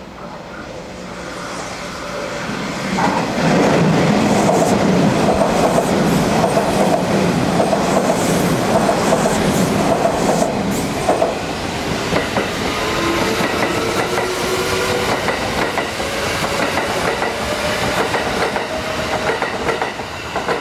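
Hanshin 1000 series electric commuter train passing close, its wheels clattering over the rail joints, with a whining tone from the drive. The sound swells about two to three seconds in and stays loud until near the end.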